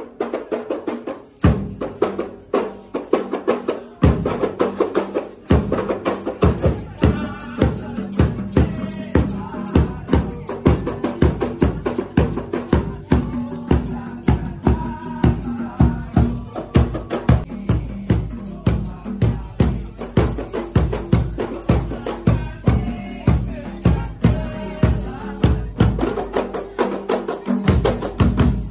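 Kompang frame drums beaten by hand in an ensemble: a steady, fast rhythm of sharp slaps, thinner for the first few seconds and then full.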